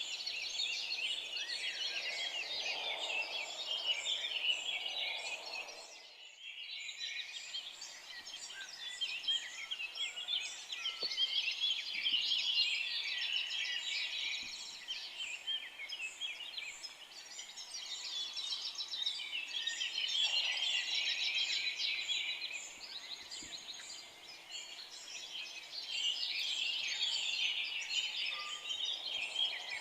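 Chorus of many forest songbirds singing and chirping together, dense and continuous, with a brief dropout about six seconds in.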